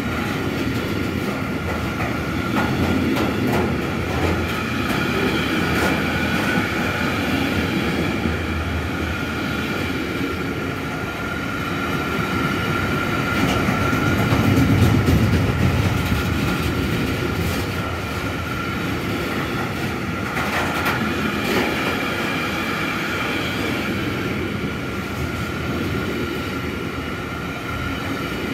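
Long container freight train passing at speed: a continuous rumble and rattle of wagon wheels on the rails, with a steady high whine running through it and scattered clicks. It swells to its loudest about halfway through.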